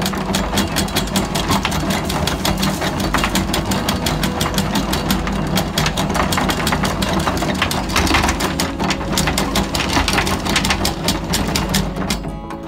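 Electric anchor windlass hauling in chain: a fast, steady clatter of links running over the gypsy above a steady motor hum, pausing briefly near the end.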